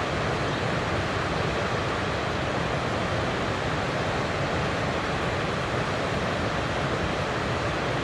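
Steady rush of river water running over rock ledges in shallow rapids.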